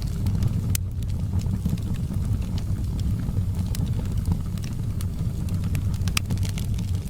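Wood fire burning in a fireplace, crackling with scattered sharp pops and snaps over a steady low rumble of the flames.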